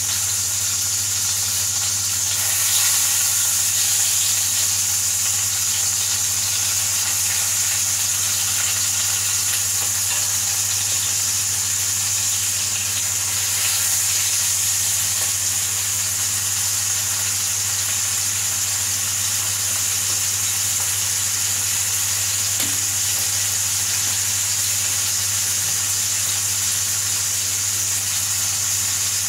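Burger patties sizzling steadily in a hot frying pan, with a steady low hum underneath.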